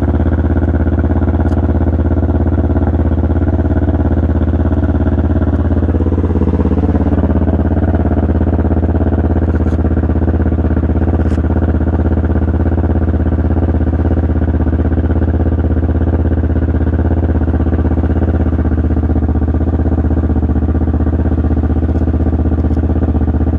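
Kawasaki Ninja 650's parallel-twin engine idling steadily while warming up from a cold start, through a full Black Widow exhaust with a carbon-fibre silencer running without its baffle.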